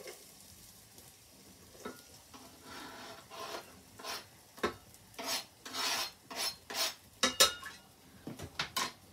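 A spatula stirring and scraping onions in the metal insert of a Breville slow cooker, in short, uneven strokes that start about three seconds in, over a faint sizzle of the onions browning.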